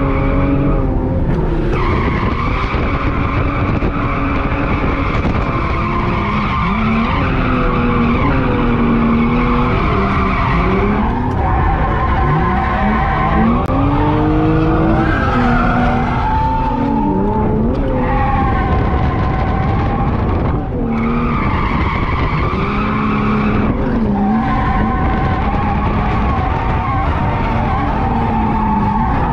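Drift car's engine revving hard, rising and falling in pitch, with the tyres squealing steadily as the car slides sideways. The squeal breaks off briefly a few times.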